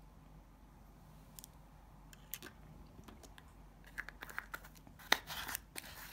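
Light clicks and rustling from handling small plastic nail-supply items, acrylic powder jars and a swatch stick, among long acrylic nails. The clicks come sparsely at first, bunch up about four seconds in, and the loudest scraping rustle comes about five seconds in.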